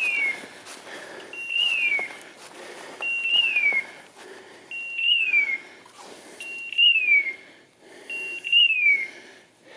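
A hunting dog's beeper collar repeats an electronic call about every 1.7 seconds. Each call is a short high tone that slides downward, sounded while the setter stands still, which fits the collar's point signal.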